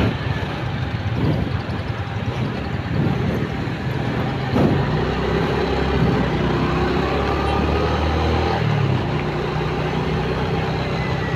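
Motorcycle engine running under way, with road and traffic noise from surrounding cars.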